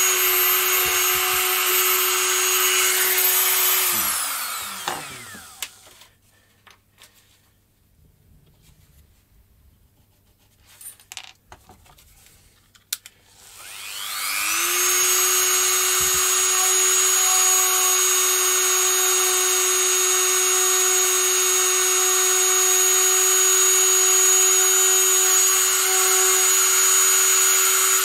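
Handheld rotary multitool running with a steady high whine while grinding out a slot in a composite glider wing. It is switched off about 4 s in and its whine falls as it spins down. A few light clicks follow, then it is switched on again about 14 s in, spins up and runs steadily on.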